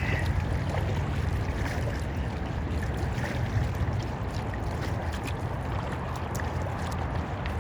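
Kayak paddling on calm water: scattered small splashes and drips from the paddle blades, over a steady low hum.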